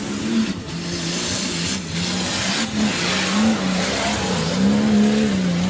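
Nissan Patrol 4x4's engine working hard under load on a steep rutted dirt climb, its pitch rising and falling again and again as the throttle is worked.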